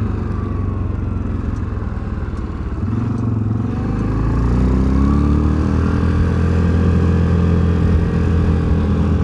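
Access Shade 850 Xtreme quad's engine running under way, heard from the rider's seat. About four seconds in it rises in pitch and gets louder as the quad accelerates, then holds steady.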